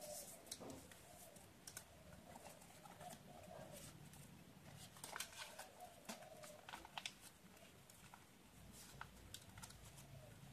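Faint rustling and crackling of origami paper being folded and creased by hand, a scatter of soft crinkles and taps, busiest around the middle.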